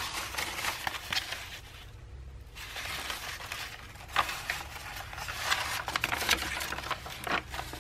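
Old paper pages rustling and crinkling as a roll of antique book pages is unrolled and handled, with a short lull about two seconds in.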